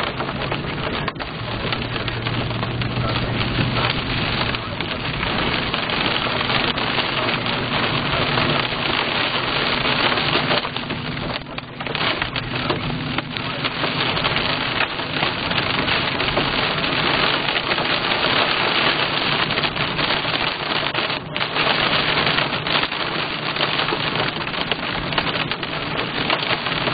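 Heavy rain beating on a car's roof and windshield, heard from inside the cabin as a dense, steady hiss of drops. A low hum sits underneath for the first few seconds.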